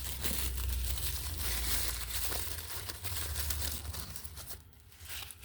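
Packing material crinkling and rustling as a parcel is unwrapped by hand, dying down about four and a half seconds in.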